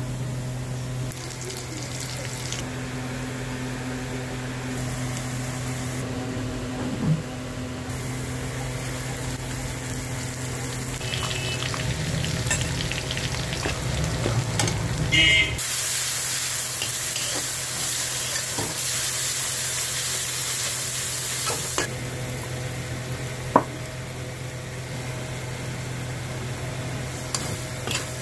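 Onions and spices sizzling in hot oil in a wok, stirred with a metal slotted spatula that clinks and scrapes against the pan now and then. A steady low hum runs beneath, and the sizzle grows brighter about halfway through.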